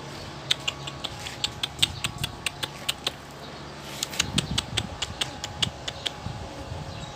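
Pigeons in their loft making rapid, irregular sharp taps and clicks, several a second, coming thicker about halfway through.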